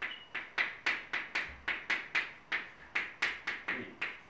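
Chalk writing on a blackboard: a quick series of sharp tapping and scratching strokes, about four to five a second, as symbols are written out.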